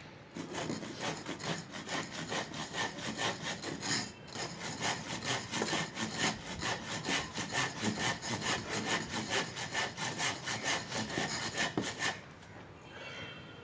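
Hand saw cutting wood in quick, even back-and-forth strokes, about three to four a second, with a short pause about four seconds in; the sawing stops about twelve seconds in.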